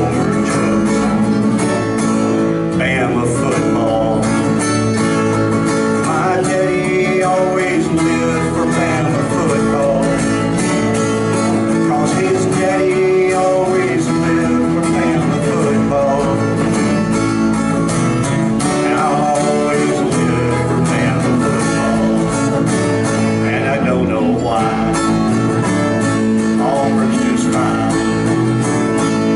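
Live country song with an acoustic guitar strummed steadily and another guitar playing along.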